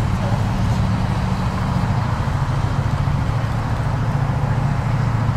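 A steady, loud, low motor drone with an even hum.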